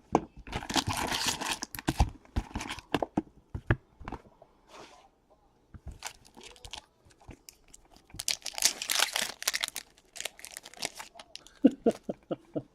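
Plastic wrapping on trading card boxes and packs being torn open and crinkled, in two longer rustling stretches with scattered clicks and taps of cardboard being handled between them.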